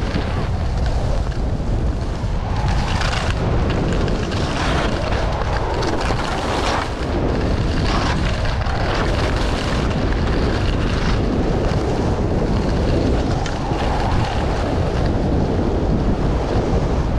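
Wind buffeting the microphone: a loud, steady low rumble with gusty surges of hiss.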